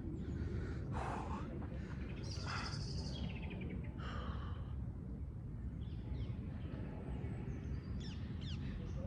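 A man breathing hard and sighing, winded from weighted-vest exercise, over a steady low outdoor rumble. Birds call now and then, with a few short chirps near the end.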